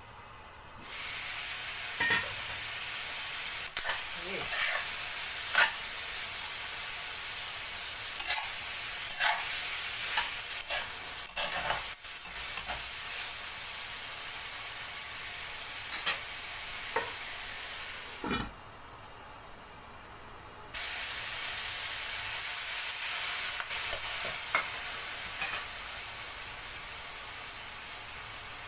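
Bell pepper, black fungus and sliced pork sizzling in a hot wok while a metal spatula stirs them, with scattered sharp scrapes and knocks of the spatula against the pan. The sizzle starts about a second in, drops away for about two seconds just after a loud knock past the middle, then comes back.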